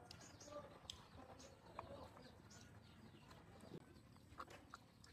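Faint sounds of puppies eating rice from a bowl: scattered small clicks of chewing and lapping, with a few short faint calls mixed in.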